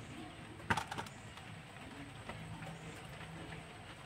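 Quiet kitchen room tone with a brief clatter of a few quick clicks about a second in, from hands working with utensils and dough.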